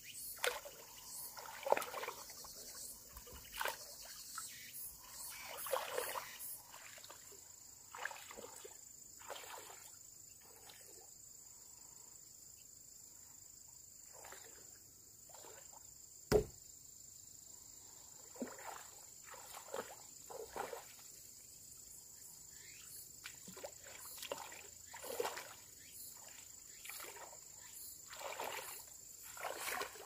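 Irregular splashing and knocking, with one sharp knock about halfway through, over a steady high insect trill.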